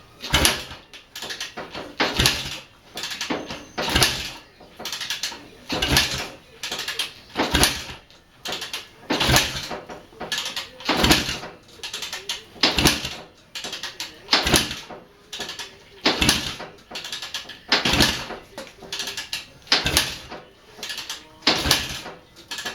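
A small engine with a freshly rebuilt top end being cranked over by hand again and again, in repeated strokes about every two seconds, and never catching: a no-start.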